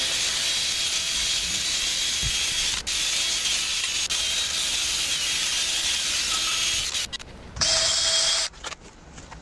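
Cordless Makita drill spinning a wire brush against welded steel tubing, scrubbing off weld slag. A steady scratching hiss that stops about seven seconds in, followed by one shorter burst near the end.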